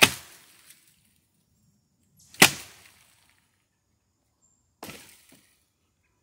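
Three sharp cracks, evenly spaced about two and a half seconds apart, each with a short ringing tail; the middle one is the loudest and the last the quietest.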